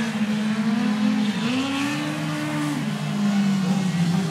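Compact speedcar engines running, with a second engine rising in pitch about a second and a half in, holding, then dropping back near three seconds.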